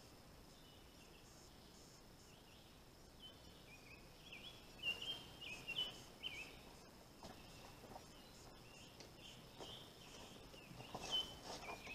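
Quiet outdoor ambience: a steady high insect drone, with repeated short high chirps gliding downward that start about three seconds in. A few faint knocks come through between the chirps.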